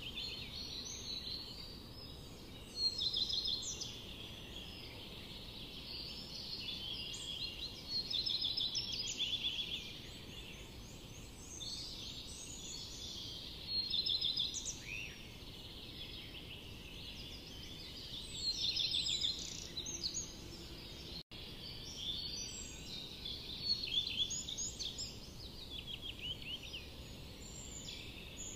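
Small birds chirping and twittering in quick repeated notes, swelling into louder bursts every few seconds, over a low steady background noise.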